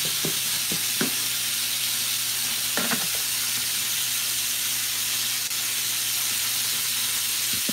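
Sausage links frying in a pan, a steady even sizzle, with a few faint soft clicks in the first three seconds.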